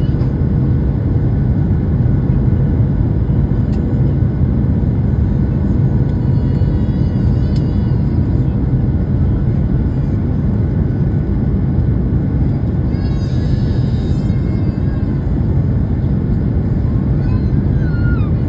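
Steady low rumble of cabin noise inside a Boeing 737-900 airliner on approach, from its engines and the airflow past the fuselage.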